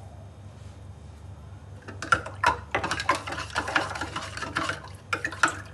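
Metal spoon stirring a sattu drink in a stainless steel pot, with rapid, irregular clinks and scrapes of metal on metal starting about two seconds in.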